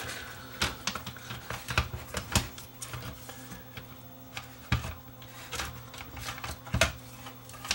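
Irregular clicks and knocks of plastic and metal parts as the Yamaha KXW-S70's double cassette transport assembly is handled and shifted in its chassis, with several sharper knocks spread through.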